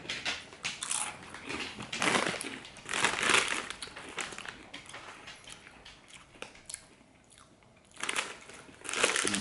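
Crunching and chewing on a hard, thick Takis Crunchy Fajitas rolled tortilla chip, loudest in bites about two and three seconds in, with the chip bag crinkling.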